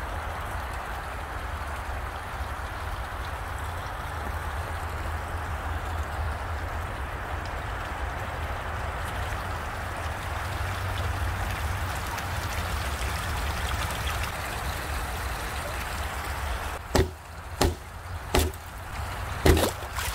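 Pond waterfall splashing steadily into a partly frozen garden pond. Near the end the splashing fades and about four sharp knocks sound.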